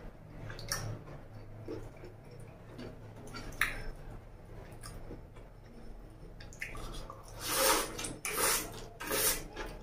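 Close-up wet chewing and mouth sounds of a person eating chow mein noodles by hand, with small clicks and smacks, then louder wet sucking sounds near the end as a fresh handful of noodles goes into the mouth.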